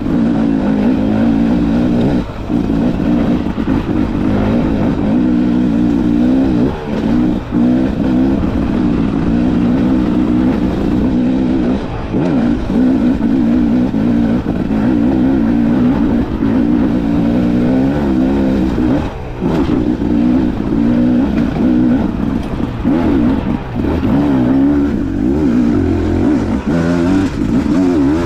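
Dirt bike engine running under load on a trail, its pitch rising and falling with the throttle, with brief drops every few seconds as the throttle is rolled off or a gear is shifted.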